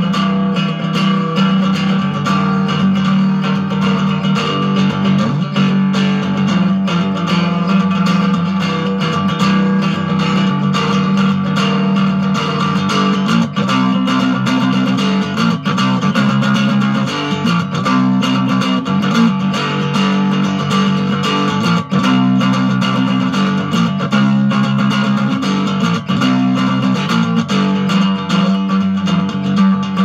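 Hubcap Howler, a cigar box guitar with a hubcap resonator, strummed in a rapid steady rhythm over a constant low drone note. Through the middle stretch the notes above the drone shift and change.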